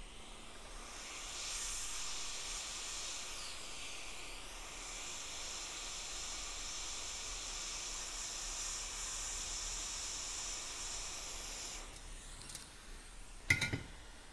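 Hot air rework station blowing a steady hiss of air onto a hard drive circuit board, reflowing the solder of a freshly fluxed chip; the air cuts off suddenly near the end. A brief knock follows shortly after.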